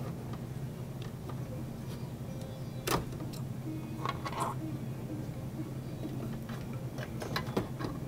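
Scattered sheet-metal clicks and knocks as a desktop's optical-drive cage is worked loose and lifted out of the case, the sharpest knock about three seconds in, over faint background music.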